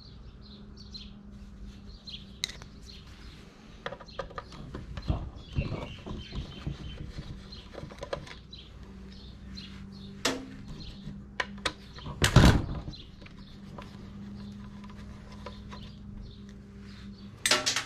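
Hand tools and metal sewing-machine parts clicking and knocking while the machine is taken apart with Allen keys. A handful of separate knocks, the loudest about twelve seconds in and another near the end, over a steady low hum.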